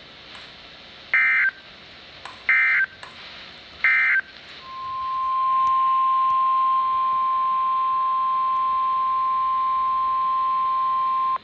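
Three short bursts of warbling SAME digital data tones, the end-of-message code closing an Emergency Alert System weather warning. They are followed by the NOAA Weather Radio 1050 Hz alert tone, a single steady high beep that swells in over about a second and holds for about seven seconds before cutting off.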